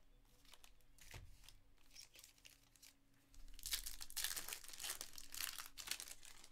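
Light handling of card packs, then a 2022 Topps Stadium Club Chrome foil pack wrapper being torn open and crinkled by hand, a dense crackle starting about halfway through.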